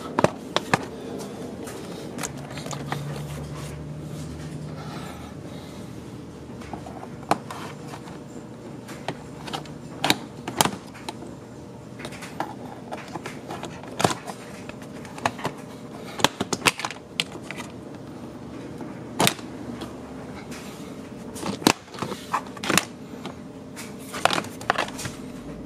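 Plastic interior trim panels of a car being pried loose with a plastic pry tool: scattered sharp clicks, snaps and knocks of the trim and its retaining clips, over a low steady hum.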